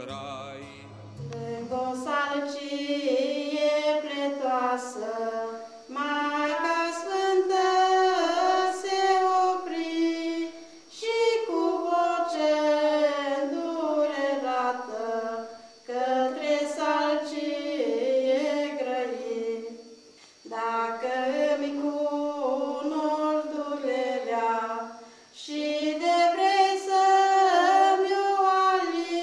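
High voices singing a slow unaccompanied song together, in phrases of about five seconds with short pauses between.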